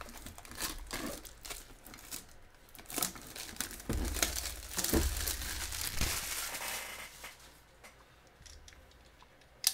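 Clear plastic shrink wrap being torn and peeled off a cardboard box: irregular crinkling and tearing, with a few dull knocks about four to six seconds in as the box is handled. The crinkling dies down over the last couple of seconds.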